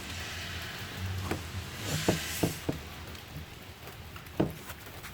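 A few sharp clicks and light knocks over a faint hiss: tools and car parts being handled during work on the engine bay, with the loudest knock near the end.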